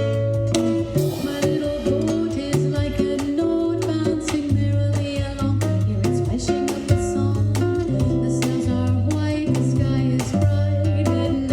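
Acoustic guitar playing plucked melody over held bass notes, with percussion adding frequent sharp hits.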